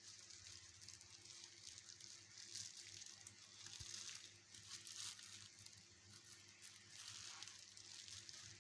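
Faint, uneven rustling and crinkling of plastic packaging being handled, in swells, over a low steady hum.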